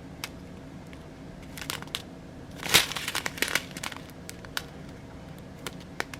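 Small plastic bags of diamond painting drills being handled, crinkling and rustling in short, irregular bursts, with the loudest crinkle a little under three seconds in.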